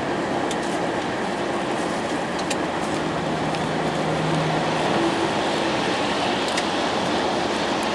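Steady tyre and road noise of a vehicle driving on a slushy highway, with a few light ticks.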